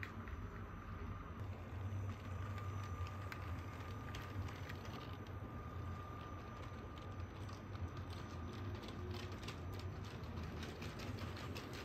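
A motorised Lego model light-rail car running on plastic Lego track: a steady low motor hum with a faint whine, and its wheels clicking over the track joints, the clicks coming thicker in the second half.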